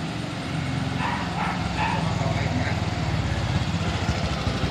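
A passing motor vehicle's engine runs steadily and grows louder toward the end as it comes closer. About a second in, a dog barks several times.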